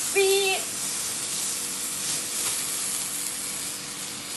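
Lit fireworks fizzing with a steady sizzling hiss. A short high-pitched call sounds briefly near the start.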